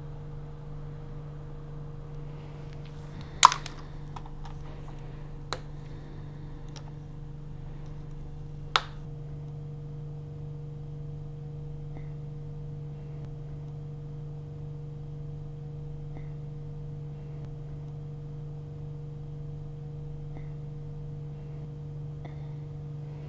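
Sharp clicks from a micropipette being handled: three of them, the loudest about three and a half seconds in, then two more within the next five seconds, followed by a few faint ticks. Under them runs a steady low hum.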